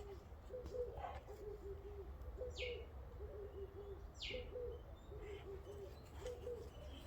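A dove cooing softly in repeated phrases of several low notes, with a small bird giving two sharp falling chirps, about two and a half and four seconds in.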